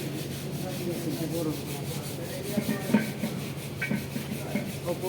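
Hand work on a vehicle wheel hub during an oil-seal fitting: rubbing and scraping, with several short metal knocks and clicks in the second half, the sharpest about three seconds in. A steady low hum runs underneath.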